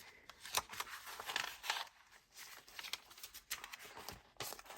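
Paper pages of a handmade junk journal being handled and turned, rustling with several soft swishes and light clicks.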